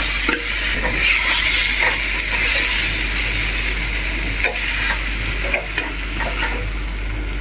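Boiled potatoes sizzling in hot ghee with tomatoes and cumin in a stainless steel pan as they are stirred, a steady frying hiss with scattered clinks of a steel spoon against the pan.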